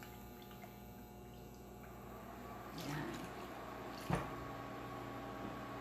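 Soy sauce poured from a glass measuring cup onto pork pieces in a stainless steel pot, a faint liquid splashing that swells about three seconds in. A short sharp knock about four seconds in, and a steady electric hum underneath.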